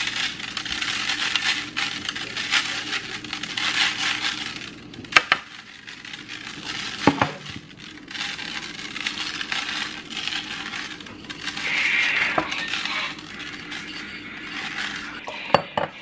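Dry minute rice poured from a stainless measuring cup into a buttered metal baking pan: a steady patter of grains striking the metal, with a few sharper knocks.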